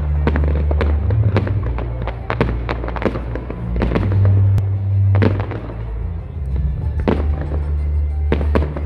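Fireworks display going off: a quick, irregular series of bangs and crackling bursts, a few of them standing out louder. Under them runs music with a heavy, steady bass line.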